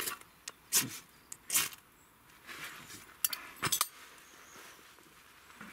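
About five sharp knocks and clicks with a soft rustle between them: split birch kindling and shavings being handled and set down on a wooden chopping stump.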